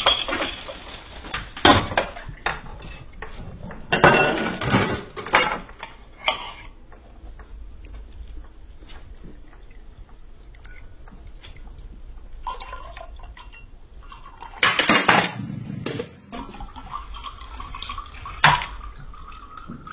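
Homemade chain-reaction contraptions running: a string of sharp knocks, clatters and clinks as parts fall and strike one another, with a longer rushing burst about three quarters of the way through and a faint rising squeal near the end.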